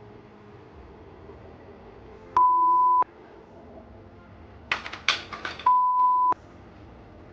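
Two steady, high, pure-tone bleeps, each about two-thirds of a second long, of the kind dubbed over speech to censor a word. A brief clatter of sharp noisy bursts comes between them.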